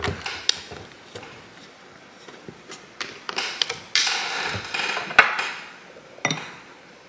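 Plastic screw cap twisted off a pear-juice bottle with a few small clicks, then juice poured from the bottle into a glass about four seconds in, followed by a sharp knock and a duller thump.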